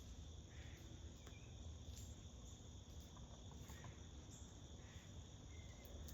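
Faint, steady chorus of crickets, a continuous high-pitched drone over a low background rumble.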